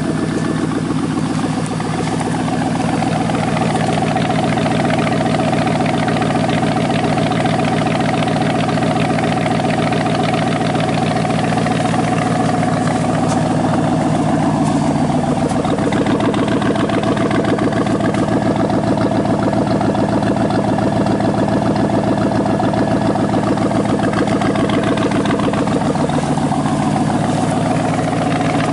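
2000 Chevy Silverado's 5.3-litre V8 idling cold through straight-piped true dual exhaust with no mufflers. It runs loud and steady, its tone shifting a little now and then.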